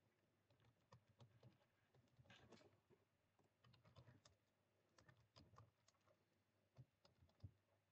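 Faint, irregular typing on a computer keyboard as text is entered into form fields.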